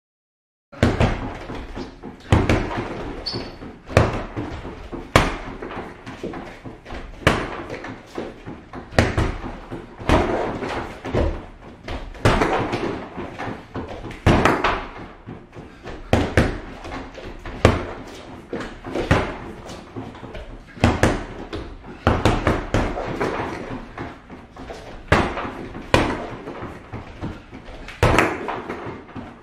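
Bare-fisted punches and kicks landing on a Dripex free-standing punching bag: a string of thuds, one or two a second, starting about a second in.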